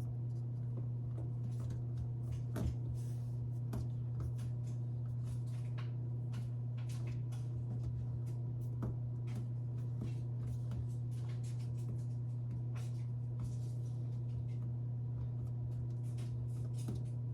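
Faint small clicks and rustles of hands pressing a glued rubber patch onto a washing machine's door gasket, over a steady low hum.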